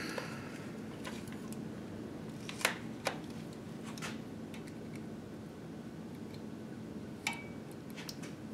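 A few light metallic clicks and taps from a hand-held measuring tool being handled and set against a crankshaft's counterweight, the last one ringing briefly, over steady low shop room noise.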